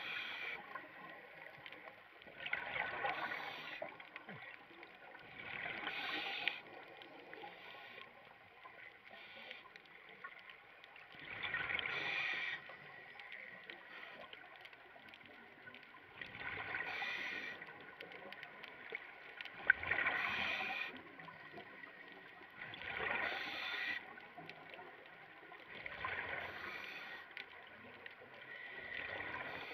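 Scuba regulator exhaust heard underwater: a rush of exhaled bubbles roughly every three seconds, about a second each, quieter between breaths. One sharp click about two-thirds through.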